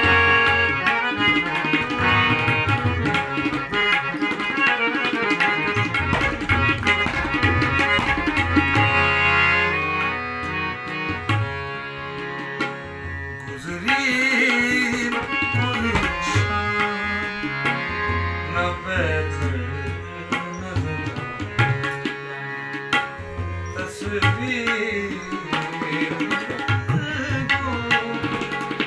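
Harmonium and tabla playing a ghazal, the harmonium's sustained reedy chords over a steady stream of tabla strokes. A man's singing voice comes in about halfway through and returns near the end.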